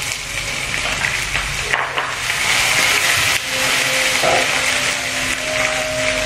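Small dried anchovies sizzling steadily in hot oil in a wok.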